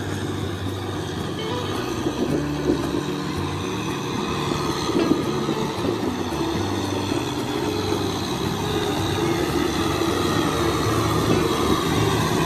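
Kubota M6040SU tractor's diesel engine running under load as it tills a flooded rice paddy, its wheels and tiller churning mud and water; it grows a little louder as it comes closer.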